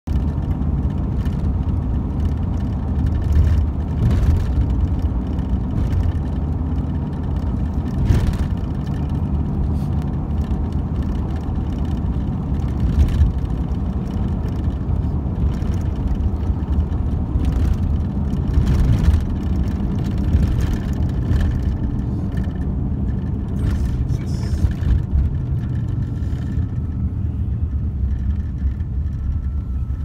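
Road noise heard from inside a moving car's cabin: a steady low rumble of engine and tyres, with a few short knocks.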